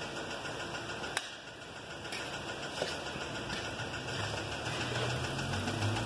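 An engine running steadily in the background, its low hum growing a little stronger in the second half, with a single light click about a second in.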